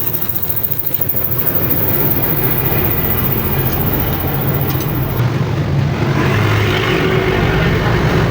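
Honda CD100SS motorcycle's single-cylinder four-stroke engine running steadily, heard through its exhaust silencer.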